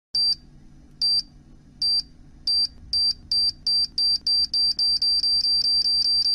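Electronic bomb-timer countdown sound effect: short high-pitched beeps over a low hum, starting about a second apart and speeding up to about four a second until they almost run together near the end.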